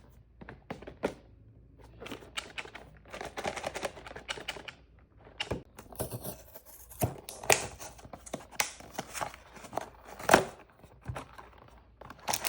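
Blind-box packaging being handled and opened by hand: irregular taps and clicks with short bursts of crinkling and tearing of cardboard and plastic, one sharper click about ten seconds in.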